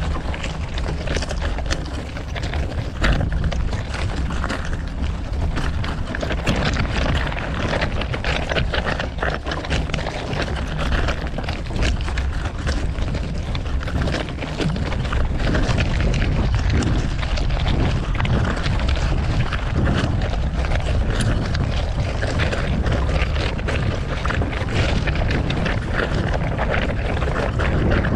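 City street traffic heard from a moving bicycle, with a steady low rumble of wind on the microphone and scattered small clicks. It grows a little louder about halfway through.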